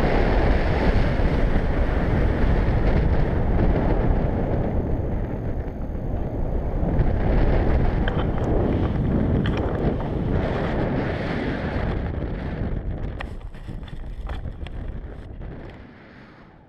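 Wind rushing over an action camera's microphone under a tandem paraglider in flight, a steady, heavy noise that eases off over the last few seconds before cutting off.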